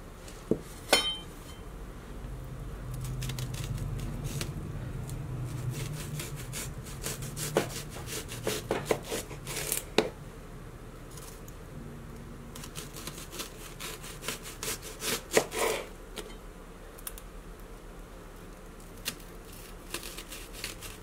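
Chef's knife slicing through a red onion and knocking on the cutting surface, a couple of cuts about a second in, then quick runs of cuts.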